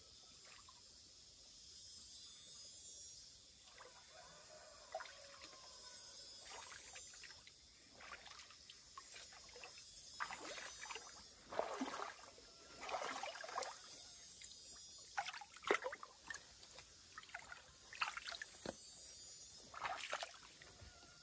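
Water trickling and sloshing, with irregular splashes from about halfway through.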